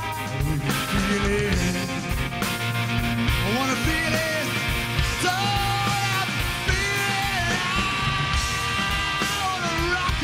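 Live rock band playing: electric guitars, bass and drums, with a male lead vocal sung hard and near shouting.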